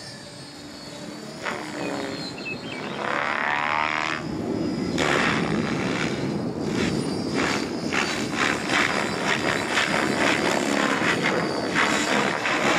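Thunder Tiger Raptor E700 electric RC helicopter with Zeal Energy main blades in aerobatic flight, its rotor whooshing with a wavering, gliding pitch. About four seconds in it turns louder, into a fast, heavy rotor chop.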